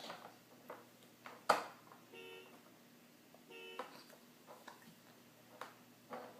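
A baby hiccups once, sharply, about a second and a half in, with faint wet mouth clicks from spit bubbles around it. Two steady electronic beeps sound in between; the first lasts about half a second, the second is shorter.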